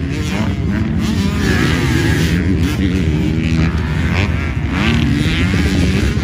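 Several dirt bike engines revving up and down at once, their pitches rising and falling and overlapping as the bikes ride a motocross track.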